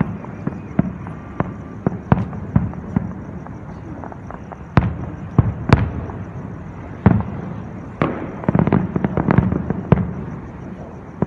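Aerial fireworks shells bursting in quick succession: a string of sharp bangs, the loudest about five to six seconds in, then a dense run of crackling pops near the end.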